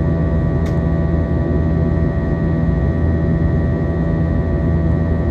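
Steady cabin noise of a jet airliner climbing after takeoff: a loud low rumble from the underwing turbofan engines and rushing air, with several steady whining tones over it. A faint click sounds about a second in.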